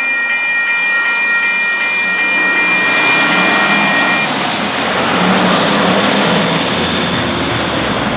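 Railroad crossing's WCH electronic bell ringing about three strikes a second, then stopping about four seconds in as the activation ends. A louder steady rush of passing vehicles takes over.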